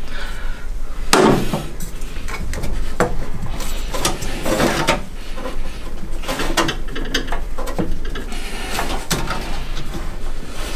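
Hands working a welded steel intake pipe into its rubber coupler and fitting a hose clamp: irregular metal clicks, knocks and rubbing, with one sharper knock about a second in.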